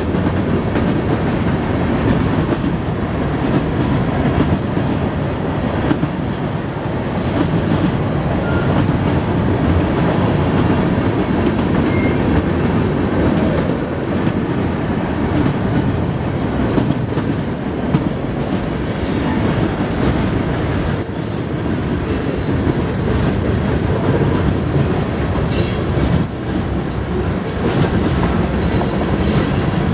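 Freight cars of a mixed freight train rolling past: a steady rumble of steel wheels on rail with clickety-clack over the rail joints, and a few brief high-pitched wheel squeals.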